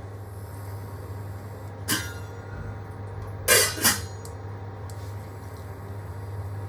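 Three sharp knocks in a kitchen: one about two seconds in, then two louder ones close together about a second and a half later. A steady low hum runs underneath.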